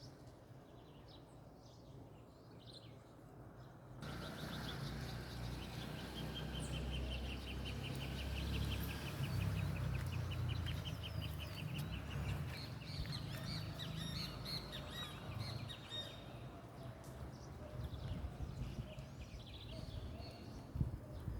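Outdoor ambience of birds calling, including one long rapid trill, over a steady hiss. About four seconds in, a low rumble and hiss come in suddenly and stay.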